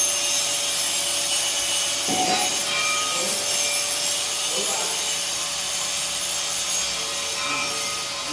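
Angle grinder working on steel: a steady, continuous grinding noise with a constant whine underneath.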